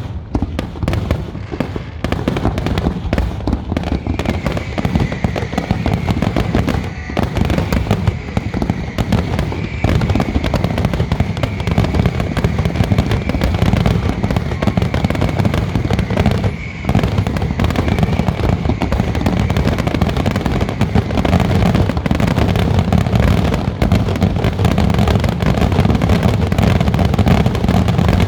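Aerial fireworks exploding in rapid, near-continuous bangs and crackles, with a steady high whistle through the middle and a heavy low rumble building toward the end.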